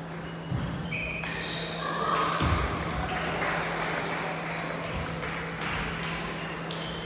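Table tennis balls knocking and pinging off tables and paddles, a few separate hits with short ringing tones, over a steady low hum in a large hall.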